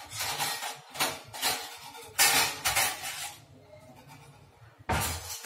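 Spoon stirring and scraping in a cooking pan of onions, in several separate bursts, the loudest and longest a little over two seconds in.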